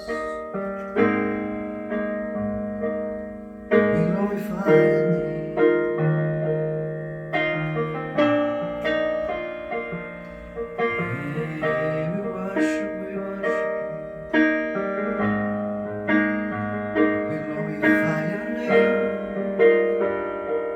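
Solo piano or keyboard playing slow sustained chords, each struck note fading before the next.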